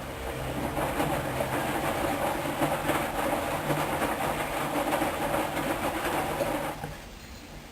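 Hoover washing machine's drum turning during the main wash: the motor hums low while the load and water clatter and slosh in the drum. It stops abruptly about seven seconds in, as the drum pauses between turns.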